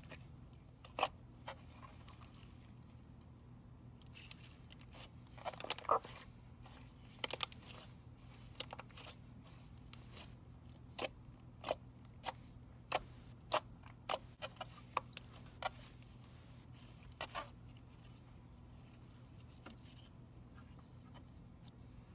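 Foil-flecked slime being squeezed and worked by hand, giving a string of sharp wet clicks and pops, thickest from about four to sixteen seconds in, then dying away.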